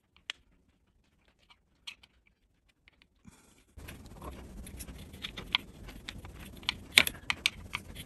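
Light clicks and taps of a flat tool against a plastic refrigerator door mullion while epoxy putty is pressed and shaped around the spring sleeve. A few scattered clicks at first, then a low hiss with frequent small clicks from about four seconds in, the loudest near the end.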